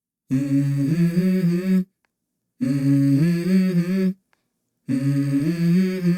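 Background music: a voice humming the same short, stepping melody three times, each phrase about a second and a half long, with abrupt silences between.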